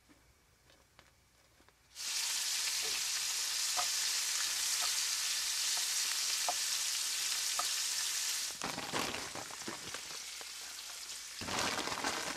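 Chopped onion frying in hot bacon grease in a pan, a loud steady sizzle that starts suddenly about two seconds in. About eight seconds in the sizzle drops to a quieter level.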